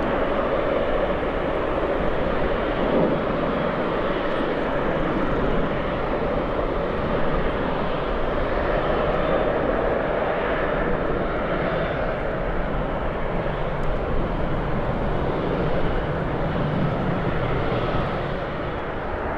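Jet airliner engines running: a steady, loud rush of noise with slow rises and falls in pitch.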